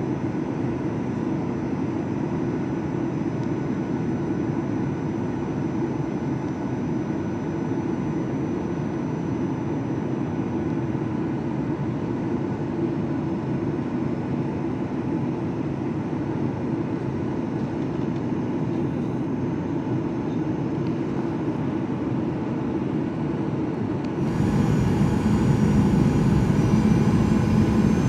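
Steady cabin noise of a jet airliner in flight, a constant rushing roar with faint steady tones. About 24 seconds in it jumps suddenly louder and deeper.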